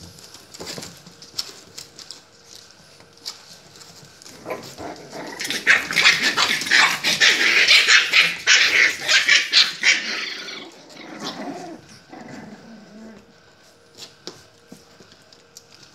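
A litter of puppies barking together, loudest for about six seconds in the middle, with quieter scattered calls and scuffling before and after.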